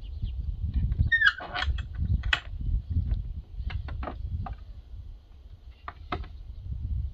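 Irregular wooden knocks and taps as an axe head is worked onto a red elm haft, with a short creaking squeak about a second in.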